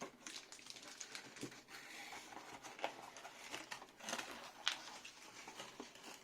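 Plastic packaging rustling and crinkling with scattered small clicks and knocks as items are unpacked by hand from a keyboard's box.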